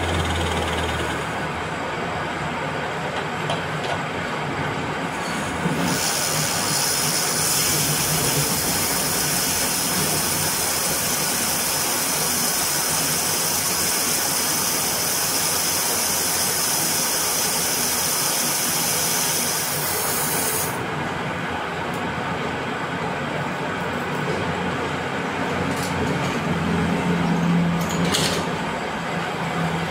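Metal lathe running, turning a stainless steel bar. From about six seconds in until about twenty seconds a steady high hiss joins the machine noise while the tool cuts into the steel.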